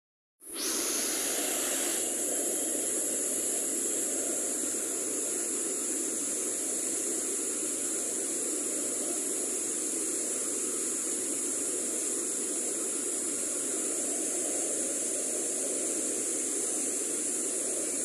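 Small mountain waterfall rushing steadily over rocks, a continuous, even roar of falling water that comes in just after the start.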